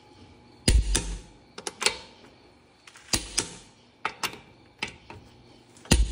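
Half-inch click-type torque wrench on a car's lug nuts: sharp clicks, several in close pairs, the loudest, with a low thump, about a second in and near the end. This is the wrench breaking over as each nut reaches its set torque of 100 foot-pounds.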